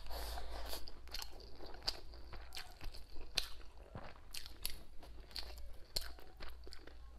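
Close-miked chewing and mouth smacking while eating braised pork belly with preserved mustard greens over rice, with irregular sharp clicks throughout.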